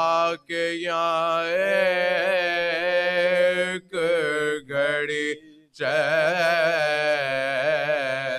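A man chanting a marsiya, an Urdu elegy for the martyrs of Karbala, unaccompanied, in long held lines with a wavering pitch. The lines break off for short breaths about four seconds in and again just before six seconds.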